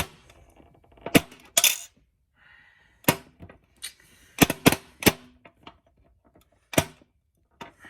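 Quarters and the coin mechanism of a bouncy ball vending machine clinking and clacking. Sharp metallic clicks and knocks come irregularly, one of them ringing on briefly at about a second and a half in and several in quick succession around four to five seconds in.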